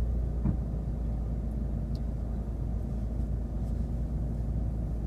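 Low, steady rumble of a car's engine and road noise, heard from inside a car moving slowly in traffic, with a brief knock about half a second in.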